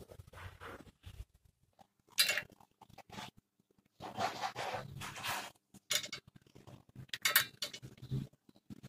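Irregular scraping, rustling and clinking of a clamp-type oil filter wrench being worked onto a Maruti Suzuki Wagon R's oil filter, with short sharp scrapes about two, five and seven seconds in.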